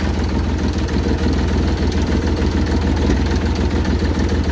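IMT 533 tractor's three-cylinder diesel engine running steadily while the tractor drives, heard from the driver's seat close to the engine.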